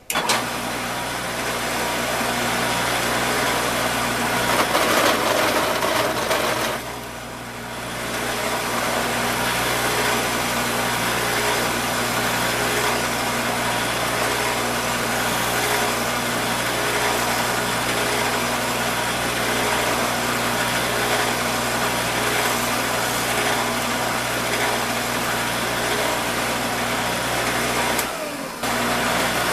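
A power-tool motor running steadily while a 7/16 bit counterbores holes in a UHMW plastic block, with a short drop in level about seven seconds in and a brief break near the end.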